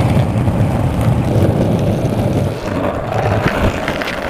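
Skateboard wheels rolling over rough asphalt, heard from a camera mounted on the board: a loud, steady rumble with a few small clicks and knocks as the wheels cross cracks.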